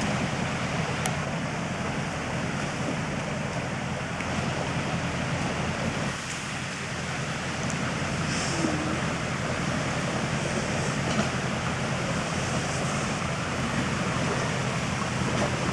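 Jeep Cherokee XJ crawling over rocks, heard as a steady noisy rumble with a few faint clicks.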